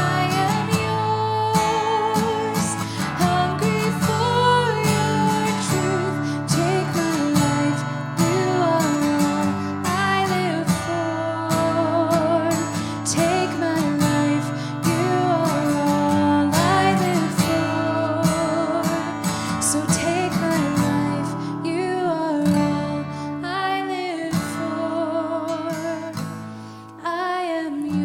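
A song with strummed acoustic guitar and a singer holding long notes with vibrato. The music drops back briefly near the end, then carries on.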